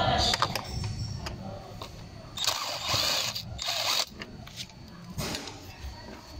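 Screwdriver working the screws of a Yamaha Mio i 125's plastic air filter cover, with uneven clicking and rattling of the tool and cover. The noise grows louder for a stretch about two and a half seconds in.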